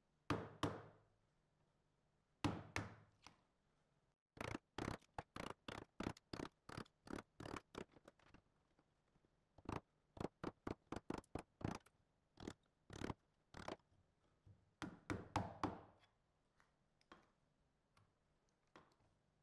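Steel bench chisel being struck again and again, chopping waste out of a half-lap joint in hard maple. The strikes come in quick runs of about three a second, with pauses between runs, and fade to a few light taps near the end.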